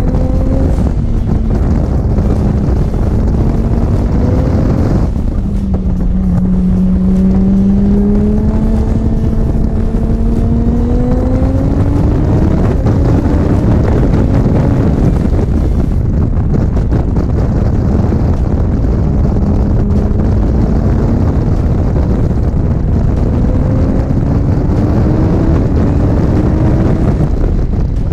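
Audi R8's twin-turbo V10 on a flying lap, engine note climbing steadily under power and falling back at upshifts and braking, with a big drop about five seconds in followed by a long climb.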